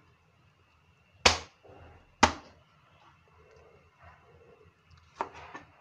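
Two sharp knocks of a chef's knife chopping down onto a plastic cutting board, about a second apart, then a few lighter knocks near the end.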